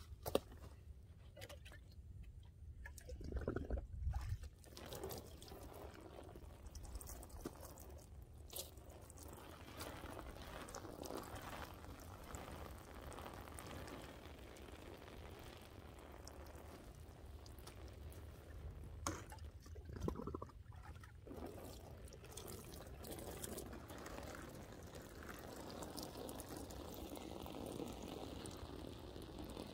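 Water pouring from a metal watering can onto soil in planting holes, a faint splashing trickle, with a few knocks and rustles where the can is handled.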